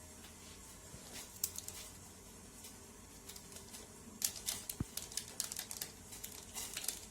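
Small plastic masala seasoning sachet being handled and opened: crackling rustles and quick clicks. A few come about a second in, then a dense run of them from about four seconds in.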